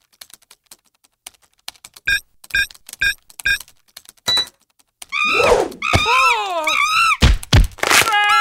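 Cartoon office sound effects: computer keyboards clicking, a few sharp clicks and a button press, then loud, wavering monkey shrieks that bend up and down in pitch, with two heavy thumps near the end.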